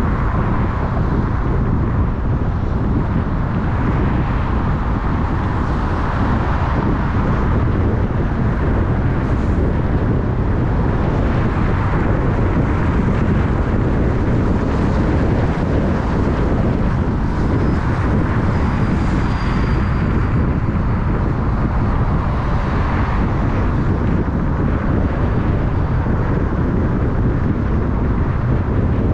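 Car driving: a steady low rumble of tyres and engine with an even hiss above it. A faint high whistle drifts in around two-thirds of the way through.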